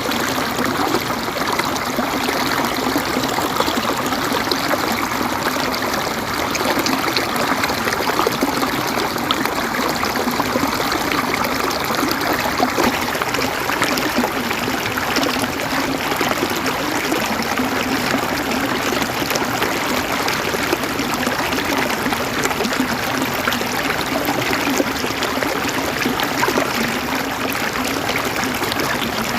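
River water flowing and gurgling over rocks, a steady rushing and babbling with fine splashy crackle throughout.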